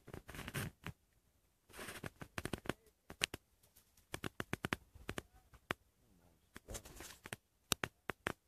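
Something being handled close to the microphone: irregular sharp clicks and taps with a few brief rustles.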